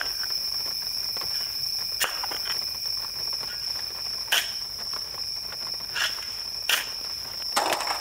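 Steady, high-pitched insect chorus, with several sharp snaps scattered through it.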